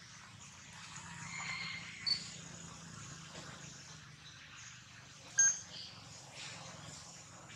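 Outdoor ambience with a faint insect hum and short, high animal calls: a soft call just after a second in, a brief chirp about two seconds in, and a sharper, louder squeak about five and a half seconds in.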